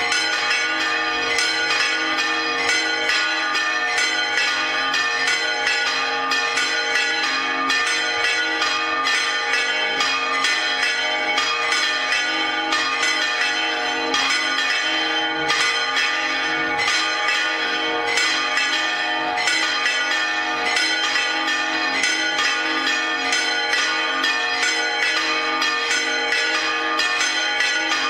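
Several church bells swinging full circle on their yokes in Spanish volteo style, their clappers striking over and over in a continuous, overlapping peal at a steady loudness. This is the general ringing that calls the village to Mass.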